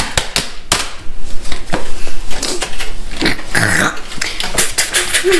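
Aluminum foil being crumpled and crinkled in the hands: a quick, irregular run of sharp crackles, with a short voice-like noise about three and a half seconds in.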